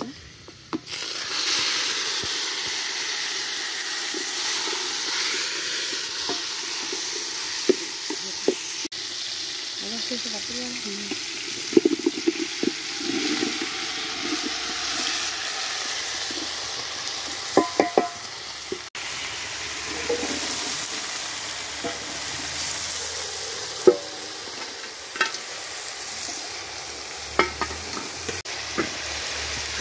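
Chopped tomatoes hitting onions frying in hot oil in an aluminium pot, setting off a loud sizzle about a second in that carries on. The sizzle is broken by scattered knocks and clatters of a wooden spoon stirring against the metal pot and of food chunks tipped in.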